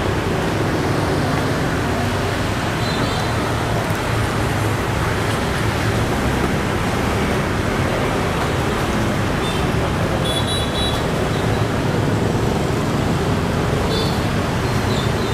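Steady street traffic noise with a few short high-pitched beeps.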